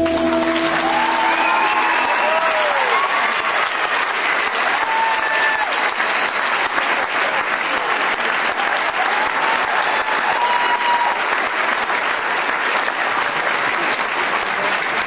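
Audience applauding, with scattered cheering calls over the clapping, as the last note of the recital music dies away in the first second.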